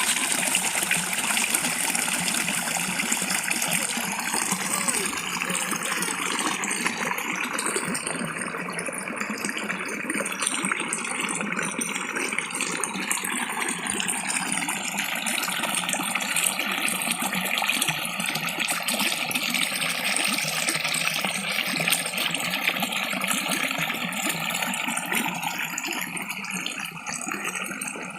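River water flowing and rushing in a steady, unbroken wash.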